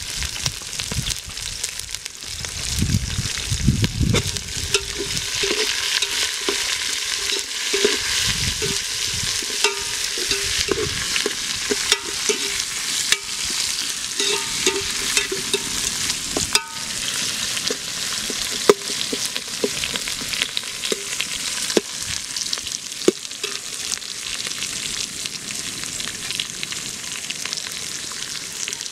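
Sliced onions sizzling in hot oil in an aluminium pot, sautéed toward golden brown. A metal ladle stirs them, with frequent short scrapes and ringing knocks against the pot.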